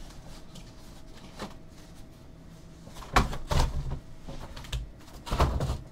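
Trading cards and plastic card holders being handled and set down on a desk while sorting: two short bursts of knocks and clatter, one about three seconds in and one near the end.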